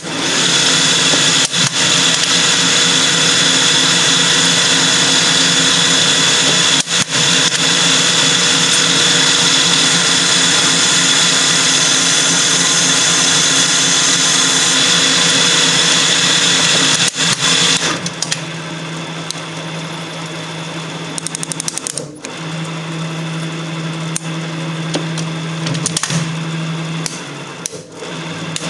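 Weiler capstan lathe running a cycle on a bar held in an ER collet chuck, with turret tools cutting at the bar end: loud, steady machine noise with a hum of steady tones. About two-thirds through it drops to a quieter running hum with a low steady tone.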